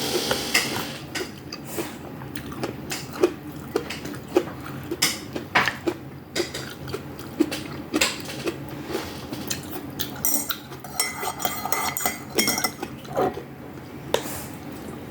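Cutlery clinking and knocking against dishes while eating a meal, in short irregular taps.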